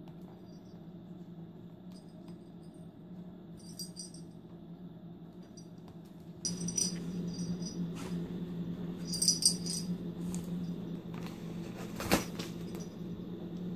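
Light jingling and rattling in short, scattered spells over a steady low hum. The hum grows louder about six and a half seconds in, and there is one sharp knock near the end.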